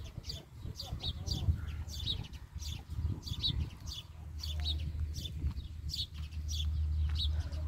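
Small birds chirping over and over, short high chirps about two or three a second, with wind rumbling low on the microphone, strongest in the second half.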